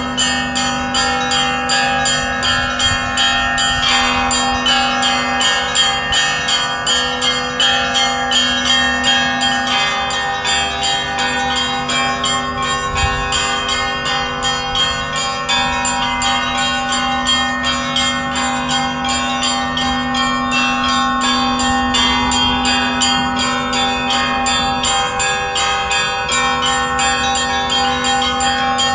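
Russian Orthodox church bells rung in a festive peal: small bells struck in a rapid, continuous pattern over the long, steady hum of the larger bells.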